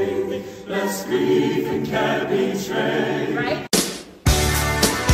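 Mixed choir singing without accompaniment, cut off abruptly about three and a half seconds in. After a short gap, a recorded rock or pop song with a strong bass line starts.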